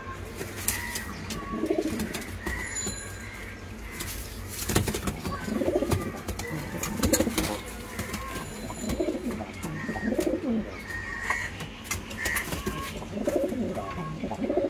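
Domestic pigeons cooing over and over, low rolling coos every second or two, with short higher chirps and a few light knocks between them.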